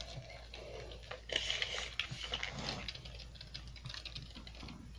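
Light scattered clicks and rustling from an object being handled, with a brief burst of rustling about a second and a half in.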